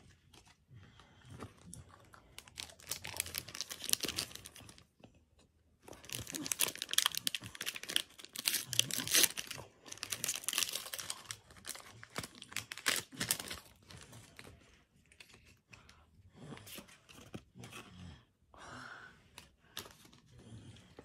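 A foil Pokémon booster pack being torn open and crinkled by hand, in dense bursts of crackling that are loudest through the middle and thin out to lighter rustles near the end.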